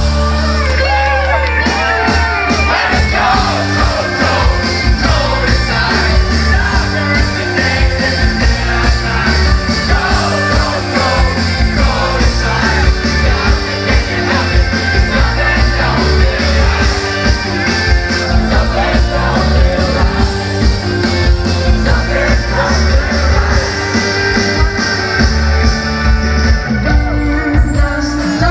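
A rock band playing live with a male lead singer: drums keeping a steady beat under bass, guitar and keyboard, with the sung vocal over the top, heard from the audience.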